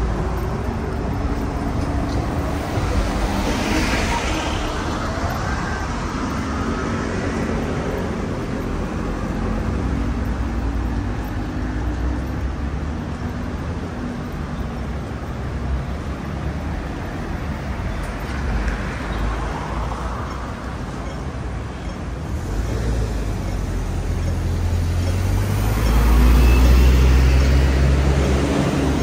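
Road traffic: a steady drone of motor vehicles, with single vehicles passing about four seconds in and again around the middle. A heavy vehicle with a deep low rumble passes near the end and is the loudest sound.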